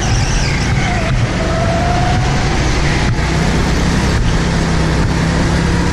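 Go-kart engine running steadily at speed, heard up close from the kart itself as a loud, continuous drone.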